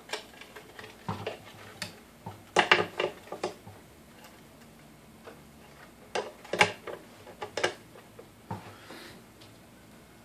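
Light clicks and taps of hands working parts and wiring on the underside of a Technics SL-1200 turntable chassis, coming in two short clusters with a few single ticks between.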